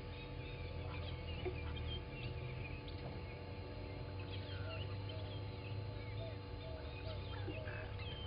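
Morning bird chorus in the African bush: many birds chirping and calling at once. From about halfway through, a low call repeats roughly once or twice a second, over a steady low hum.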